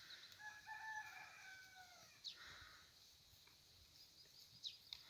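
A faint rooster crow: one call of under two seconds that drops in pitch at the end.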